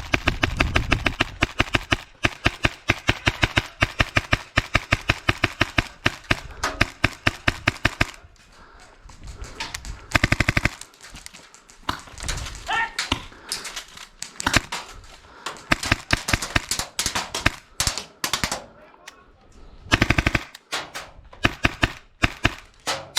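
Tokyo Marui MP7 gas blowback airsoft gun, running on an HPA adapter, firing. A long string of rapid, evenly spaced single shots lasts about eight seconds. After that come scattered quieter shots and two short full-auto bursts, one near the middle and one near the end.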